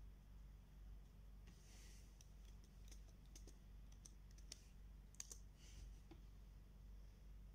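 Faint computer keyboard keystrokes and mouse clicks: about a dozen irregular clicks between about one and a half and six seconds in, over a low steady hum.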